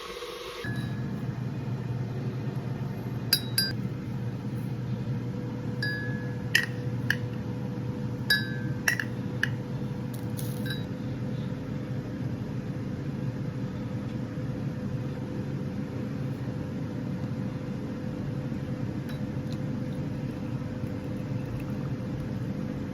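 A kitchen appliance running with a steady low hum, with several light clinks of glass or crockery, such as cups and dishes being handled, scattered between about 3 and 11 seconds in.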